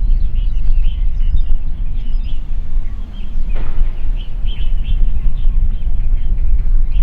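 Many small birds chirping in short, quick calls over a loud, steady low rumble, with one brief rustle-like noise about halfway through.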